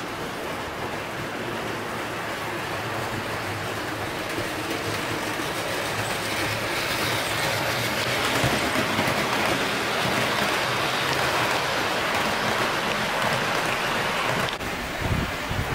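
HO-scale model train, a C57 steam locomotive hauling passenger coaches, rolling along the track: a steady rattle of metal wheels on rails that grows louder as the train comes by and is loudest in the middle. It cuts off sharply near the end.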